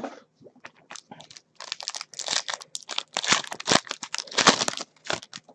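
Foil wrapper of a football trading-card pack crinkling and crackling as it is torn open and handled. A few light rustles at first, then dense crinkling from about a second and a half in.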